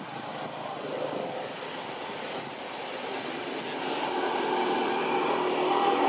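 Steady outdoor background noise with a faint hum that grows somewhat louder in the second half.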